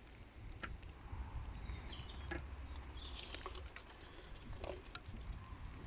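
Faint, scattered small clicks and taps from the brass filter housing on a heat pump's pipework as its cap is unscrewed by hand.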